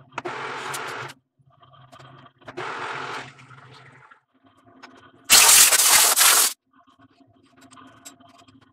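Three rushes of hissing noise over a steady machine hum, the third, about five seconds in, much the loudest; the hum stops about four seconds in. After that come light metallic clicks and clinks as the lathe's three-jaw chuck is worked with its chuck key.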